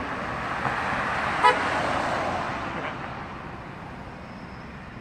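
A car driving past, its tyre and road noise swelling and then fading, with one short toot of its horn about a second and a half in.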